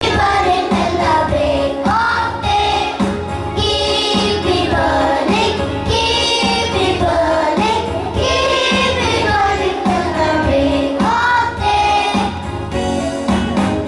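A song playing: several voices singing together over a steady beat.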